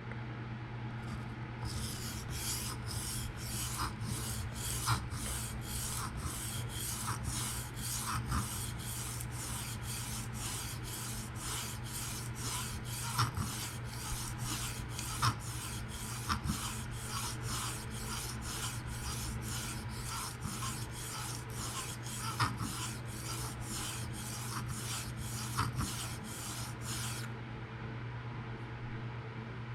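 A PM60-steel knife blade stroked freehand across a 600-grit Atoma diamond plate: a repeated scraping rasp, about two strokes a second, that starts about two seconds in and stops about three seconds before the end. The strokes are raising a burr on the first side of the edge. A steady low hum runs underneath.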